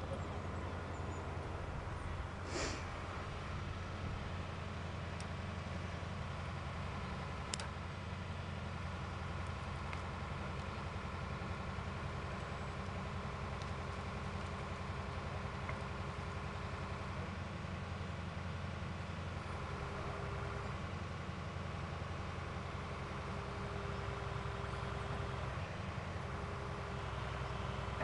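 Truck engine idling steadily, a low even hum, with a single thump about two and a half seconds in and a sharp click a few seconds later.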